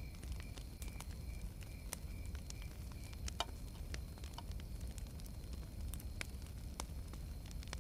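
Bonfire crackling: scattered sharp pops and snaps over a low steady rumble.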